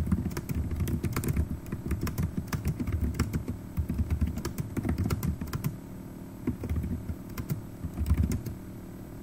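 Typing on a computer keyboard: quick, irregular keystrokes, with a short pause about six seconds in and a slowdown near the end.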